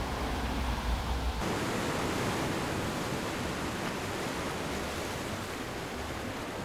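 Steady rush of sea surf, with an abrupt change in the sound about a second and a half in.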